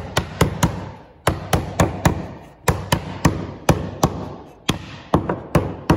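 Rubber mallet knocking a fibreboard (MDF) top piece down onto the tenons of a jig. It strikes in quick runs of three to five blows, about four a second, with short pauses between the runs.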